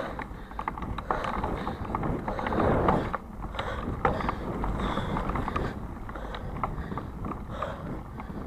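Bicycle rolling over a rough, muddy dirt trail while being pulled, with irregular rattling and clicking from the bike and tyre noise on the dirt.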